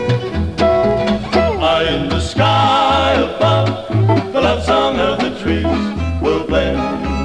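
Instrumental break of a 1957 western swing recording: fiddle, lead and rhythm guitars, and an upright bass plucking about two notes a second. From about two and a half seconds in, a melody line with wavering vibrato comes to the front.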